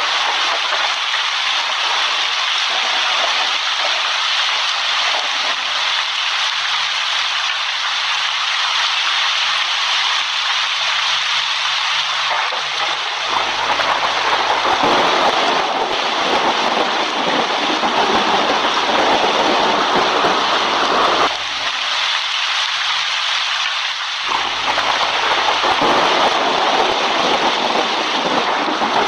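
Heavy rain falling in a steady hiss. From about halfway a deeper thunder rumble joins it; the rumble cuts off suddenly, then comes back a few seconds later.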